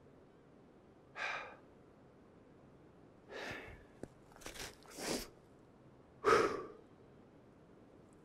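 A man breathing hard from the exertion of hiking up a slope: about five heavy, breathy exhales and gasps, unevenly spaced.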